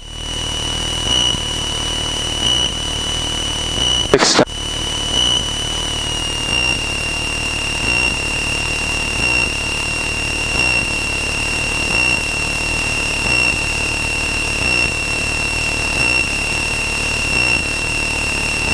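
Cessna 162 cockpit audio as heard through the intercom: a low engine drone with a steady high-pitched whine over it. The whine dips slightly in pitch about six seconds in. A single sharp click comes about four seconds in.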